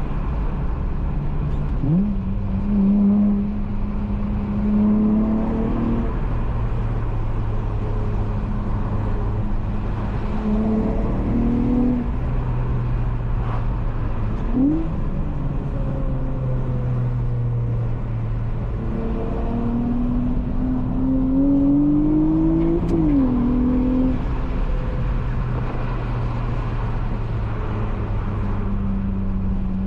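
Honda Accord coupe's swapped J32A3 V6 running through a Skunk2 Megapower single-exit exhaust while driving, the engine note holding steady between throttle changes. Its pitch jumps up about two seconds in, rises and falls a few more times through the middle, then climbs in one longer pull that drops suddenly about three-quarters of the way through, as on an upshift.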